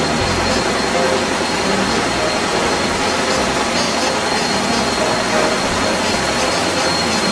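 Automated carton-packaging machinery running: a steady, loud mechanical whir and hiss from the conveyors and carton-handling stations, with a faint high whine held throughout.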